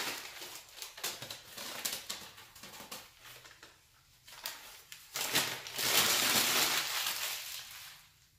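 Newspaper packing handled over a plastic tub: scattered light rustles and ticks, then about five seconds in a louder stretch of crumpling and crinkling paper lasting two to three seconds before it dies away.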